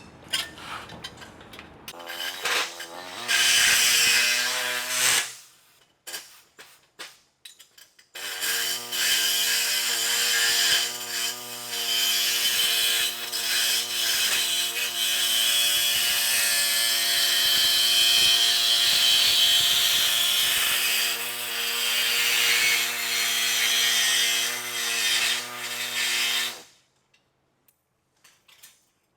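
Body saw cutting a latch slot in the sheet-steel trunk lid of a Model A: a short run of about three seconds, a pause with a few clicks, then a long steady cut of nearly twenty seconds that stops abruptly.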